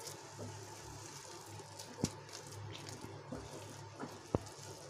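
Wooden spatula stirring and scraping a thick coconut and milk-powder barfi mixture around a nonstick pan, with two sharp knocks, about two seconds in and near the end. A low steady hum runs underneath.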